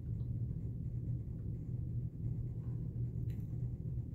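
A steady low hum, the background noise of the room, with no other clear sound.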